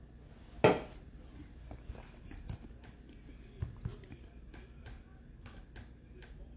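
A sharp knock on a table, then scattered light clicks and taps with two duller thumps, from trading-card boxes and packs being handled.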